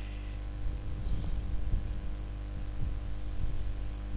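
Steady electrical hum with many evenly spaced tones, the mains hum and buzz of a microphone recording, with a thin high whine above it and a few faint ticks.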